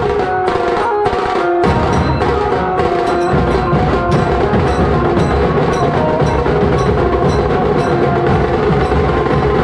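Loud procession music: drums beating a steady rhythm of sharp hits, with a sustained melody line played over it.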